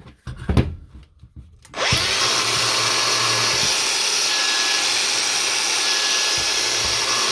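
A few handling knocks, then a Makita DGA463 18V brushless angle grinder switches on about two seconds in, winds up quickly and runs steadily at full speed. It sounds smooth: the worn motor bearing that caused its noise has been replaced.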